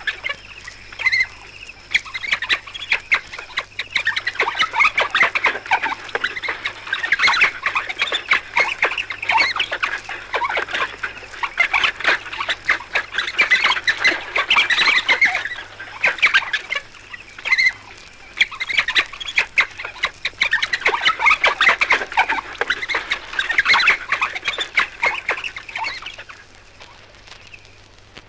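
A pack of African wild dogs twittering: a dense, continuous run of high, rapid, bird-like chirps and squeaks that dies down near the end.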